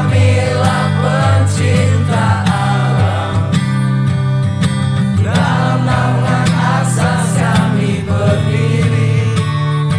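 Background music: a song with a singing voice over guitar accompaniment and a steady bass line.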